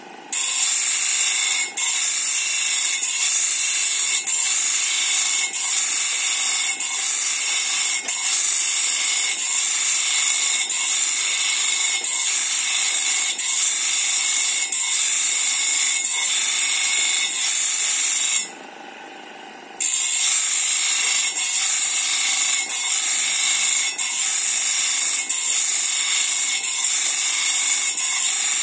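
Electric bench grinder's abrasive wheel grinding the steel teeth of a sawmill band saw blade to sharpen them: a loud, harsh, hissing grind with a regular beat a little slower than once a second. It stops for about a second roughly two-thirds of the way through, then resumes.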